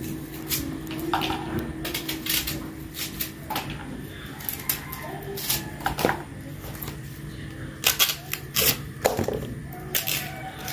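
Kitchen knife slicing raw baby corn by hand over a plastic bowl: irregular crisp cuts and clicks, some sharper than others. A low steady hum runs underneath.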